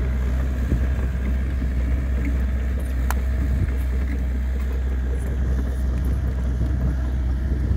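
Diesel engine of a Hitachi compact excavator running steadily close by, a constant low drone with a fixed higher hum over it.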